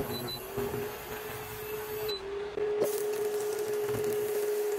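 Induction cooktop humming with a steady mid-pitched tone under an empty pan, with short high beeps from its touch controls as the power setting is changed. The tone dips briefly about two seconds in, and there is a click near three seconds.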